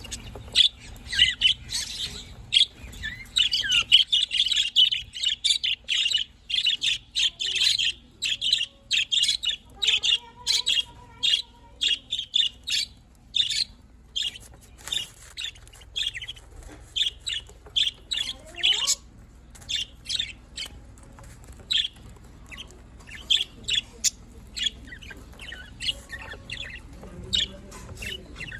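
Budgerigars chattering with a dense run of quick chirps and warbles, busiest in the first half and sparser later.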